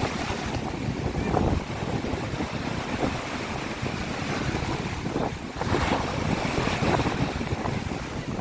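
Waves of the Sea of Azov washing onto the shore, with wind rumbling on the microphone.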